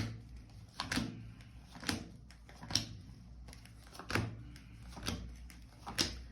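Tarot cards being laid down or flipped onto a table: about seven sharp taps, roughly one a second.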